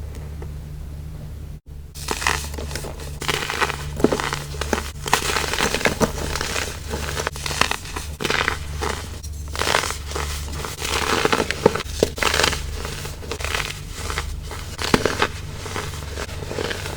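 Baking soda crumble being crushed, a dense run of irregular crisp crunches that starts about two seconds in and goes on until near the end.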